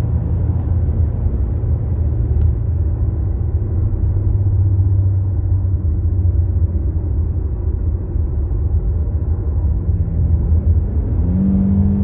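Infiniti sedan's engine and tyre rumble heard from inside the cabin while driving, a steady low drone. Near the end the engine note rises and holds as the car speeds up.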